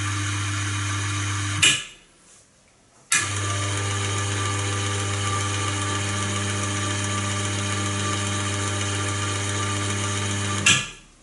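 Electric gear motor running under an inverter's control with a steady hum. It stops abruptly about a second and a half in, stays quiet for about a second and a half, then starts again with a click, and stops the same way near the end.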